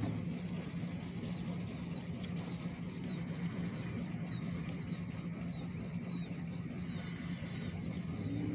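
Freight train's diesel locomotive rumbling low and steady at a distance. Over it, a bird chirps a rapid run of short, high notes, two or three a second, which stops near the end.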